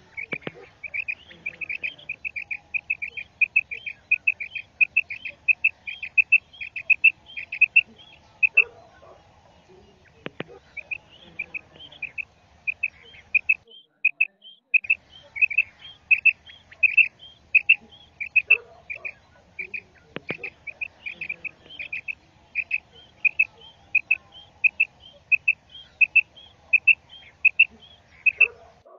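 Recorded call of a female quail (batair), the kind played as a lure for quail hunting: a long run of short, high, clipped notes at about four a second, pausing twice.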